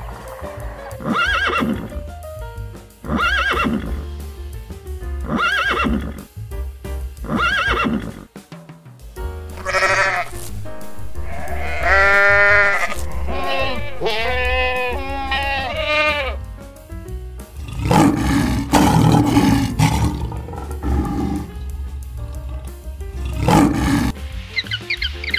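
Background music with a series of animal calls laid over it: four short calls in the first several seconds, then a run of longer calls that rise and fall in pitch, and a couple of louder, harsher calls near the end.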